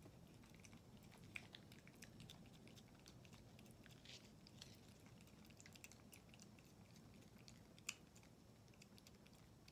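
Faint, irregular wet clicks and smacks of a kitten licking and eating Churu paste from a squeezed treat tube, with one sharper click about eight seconds in.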